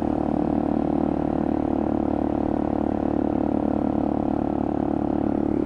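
Motorcycle engine running at steady revs, an even, unchanging drone with a fine regular pulse.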